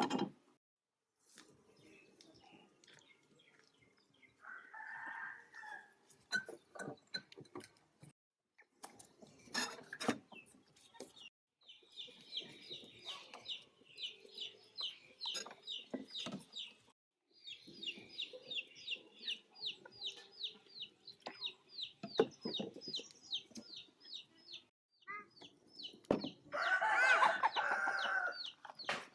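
Chickens calling: a short call about five seconds in and a long rooster crow near the end, with long runs of rapid, high repeated chirps in between. Scattered knocks and clatters come and go throughout.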